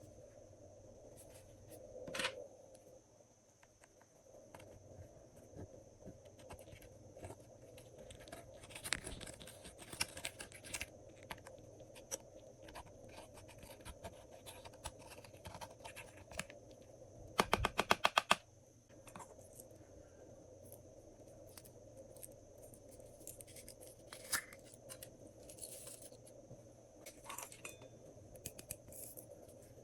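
Glossy slime being squished and stretched by hand, giving scattered sticky clicks and crackles, with a quick run of about ten sharp pops a little past halfway.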